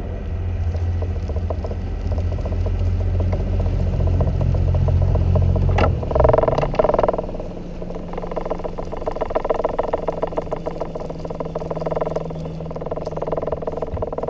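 Small fishing boat's motor running with a steady low drone that drops away about six seconds in, leaving a steadier, higher hum.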